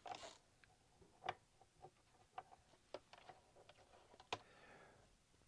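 Faint, scattered clicks and taps of a FRAM chip being handled and seated in an EPROM programmer's chip socket, with a brief rustle at the start and the sharpest click about four seconds in.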